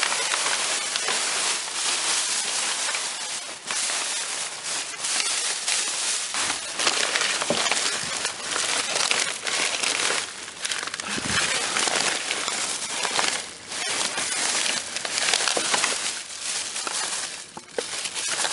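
Continuous rustling and crinkling of plastic and paper trash being handled and rummaged through, rising and falling, with scattered crackles and small knocks.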